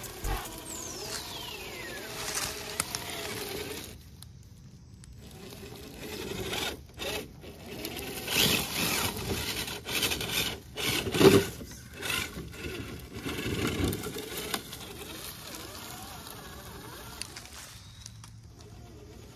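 Axial SCX10 III radio-controlled rock crawler driving: its small electric motor and gears whine in uneven bursts, with scraping and knocks as it clambers over sticks and rough ground.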